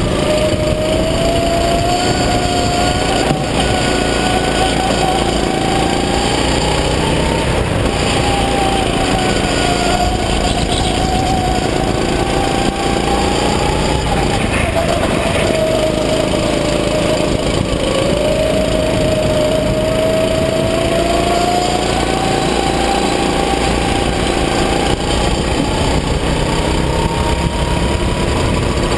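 Rental go-kart's small engine running hard at speed, heard from the driver's seat. Its pitch climbs and drops several times as the driver accelerates down the straights and lifts for the corners.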